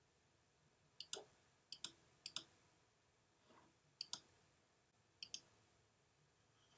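Computer mouse button clicked five times, each a quick press-and-release double tick. Three clicks come close together about a second in, then two more follow about a second apart.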